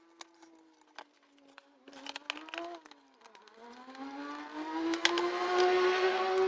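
Hair dryer running, its motor whine dipping about three seconds in, then climbing in pitch and growing louder with a rush of air, with scattered clicks of handling.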